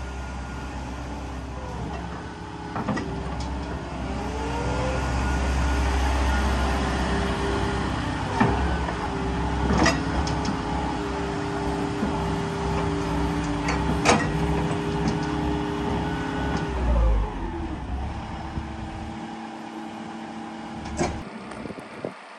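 Volvo EC140 crawler excavator's diesel engine running, rising in pitch a few seconds in as the hydraulics work the boom, arm and bucket, and falling back toward the end. Several sharp metallic clanks from the bucket and linkage come along the way.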